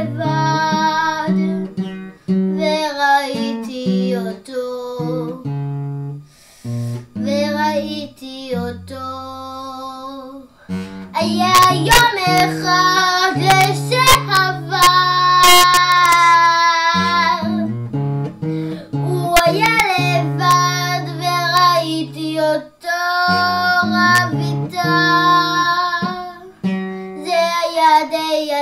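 A young girl singing a song to acoustic guitar accompaniment, her voice louder through the middle of the song.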